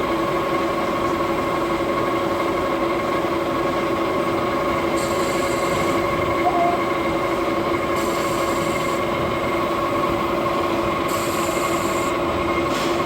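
T-Smart T5 lathe running at 400 rpm with a steady gear whine while cutting an internal thread. A high hiss comes in for about a second roughly every three seconds.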